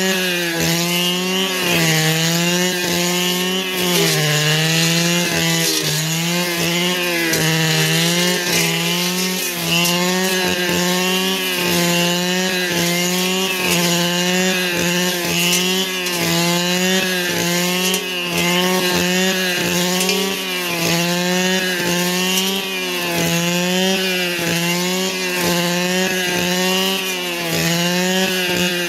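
Two-stroke brush cutter engine running at high revs, its pitch dipping and recovering again and again as the cutting load comes and goes.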